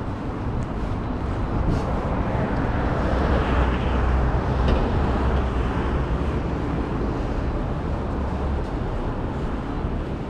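Busy city street ambience: a steady traffic rumble that swells to its loudest about three to five seconds in.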